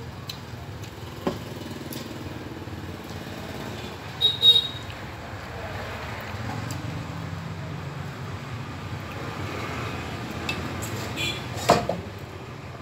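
Chopsticks and a porcelain rice bowl clinking: a sharp ringing double clink about four seconds in and another knock near the end. Under it a steady low rumble like a motor vehicle running nearby, swelling for a few seconds in the middle.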